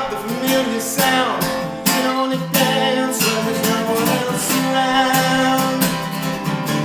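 Music: a song with strummed acoustic guitar in an instrumental passage, with no words sung.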